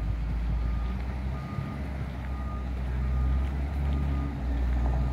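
Reach stacker's reversing alarm giving a steady series of short high beeps, over the low rumble of a working engine.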